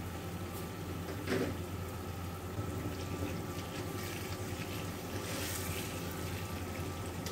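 Tomato-and-onion masala sizzling in oil in a non-stick wok as a slotted spoon stirs it, over a steady low hum. A short knock about a second in.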